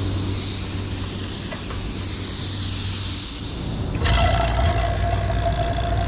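Nitrogen hissing out as the pressure-test charge is vented from a central air conditioning system. About four seconds in, an electric refrigeration vacuum pump starts and runs with a steady hum, beginning to evacuate the system.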